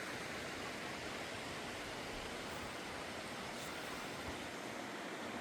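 Small waterfall on a trout stream, water falling and rushing in a steady, even hiss.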